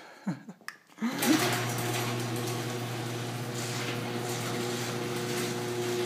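Electric garage door opener switched on with a click about a second in, its motor then running with a steady hum as it lifts the sectional door, whose sagging centre section is now braced with a 2x4 screwed across it.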